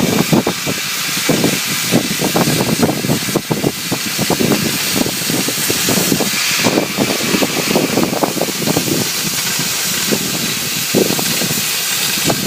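Oxy-fuel cutting torch on a CNC flame cutting machine, with a steady hiss of the gas jet and a dense, irregular crackle as it cuts steel plate.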